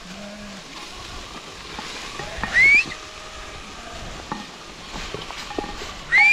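A short, high whistle rising in pitch about two and a half seconds in, then a longer steady whistle starting near the end, over a faint steady hiss with small scattered ticks.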